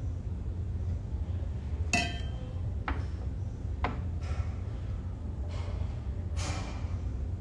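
A mug set down on a hard surface with a ringing clink about two seconds in, followed by a few softer clicks and knocks and a brief rustle near the end, over a steady low hum.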